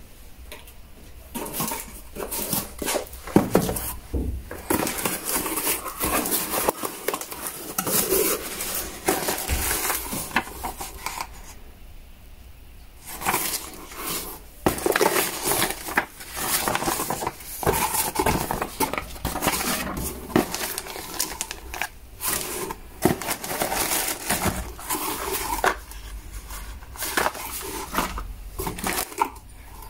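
A cardboard box being opened and unpacked by hand: cardboard flaps and paper rustling, plastic bags crinkling and bagged small metal hardware clinking, in irregular bursts with a short lull about twelve seconds in.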